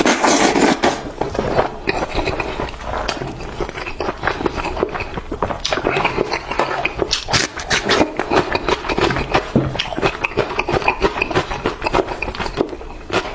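Close-up eating sounds of someone chewing braised chicken drumsticks: a dense, continuous run of small wet clicks and scrapes.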